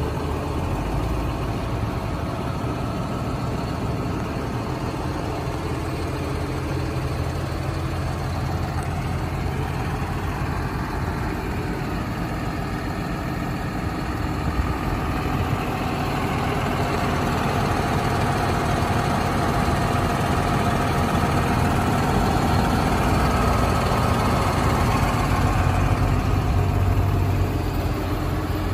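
John Deere 7530 tractor's six-cylinder diesel engine idling steadily, getting somewhat louder about halfway through.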